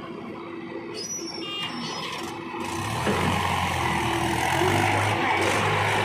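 Diesel engine of a Mahindra 575 DI tractor running. About three seconds in it grows louder and fuller as the tractor pulls off with a trolley loaded with earth.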